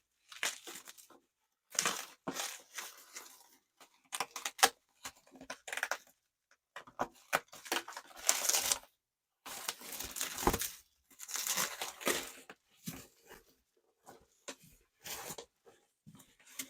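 Shipping packaging being torn open and crinkled by hand as a parcel is unwrapped, in a string of short, irregular rustling bursts with brief pauses between them.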